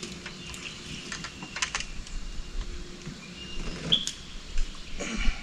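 Scattered light clicks and taps, like fishing tackle being handled in a small boat, over a faint steady hum. A short high chirp comes about four seconds in, and a louder rustle of movement near the end.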